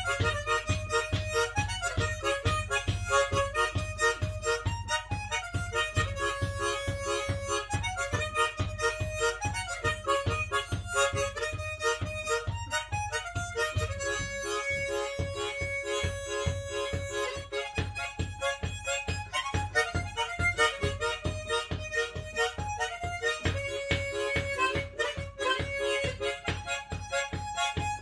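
Solo harmonica playing a lively melody, with long held notes between runs of fast, evenly pulsed notes.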